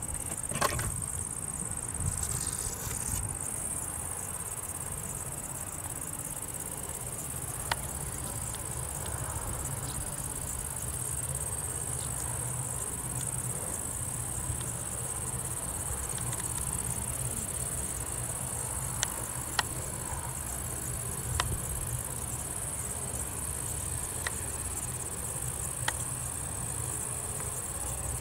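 A steady, high-pitched insect chorus with no breaks, over a low rumble, with a few sharp clicks here and there.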